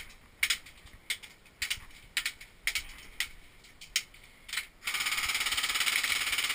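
Airsoft fire: scattered sharp cracks of single shots or BBs striking the wooden tower, then about five seconds in a steady, fast rattle of sustained full-auto fire.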